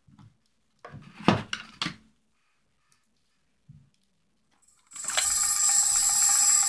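A few quick clicks about a second in, then music starting about five seconds in with a bright, sustained chord.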